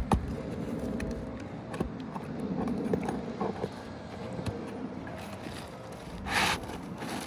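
Asphalt roof shingle being worked loose and handled after its last nail is found: scraping and rustling with a few sharp clicks at the start and a brief louder rustle near the end.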